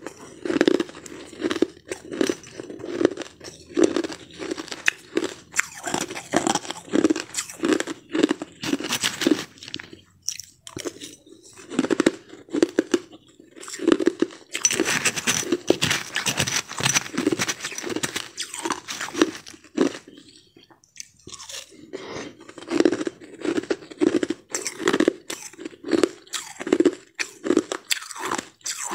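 Someone chewing crushed ice, crunching in a steady rhythm of about two bites a second, with two short pauses.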